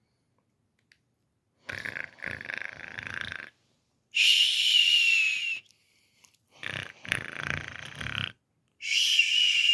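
Snoring, twice: each rasping in-breath is followed by a high whistling out-breath that falls slightly in pitch.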